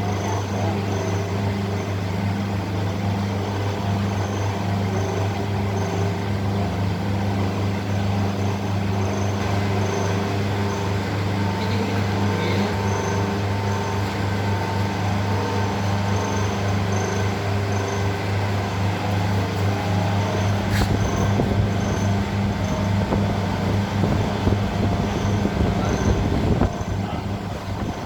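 An engine or machine motor running steadily with a constant low hum, a faint high tick repeating about once a second, and a deeper rumble building in the last third before easing off near the end.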